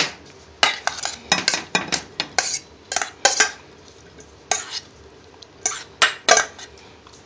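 Stainless steel bowl clinking and scraping as cut grapes are tipped and scraped out of it onto a ceramic plate: a run of irregular sharp clinks and short scrapes, stopping near the end.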